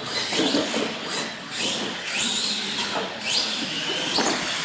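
Electric motors of radio-controlled monster trucks whining in repeated rising pitch sweeps as the throttle is worked.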